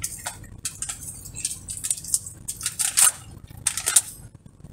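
Hands being wiped clean, a quick series of dry rustling and rubbing strokes, loudest about three seconds and four seconds in.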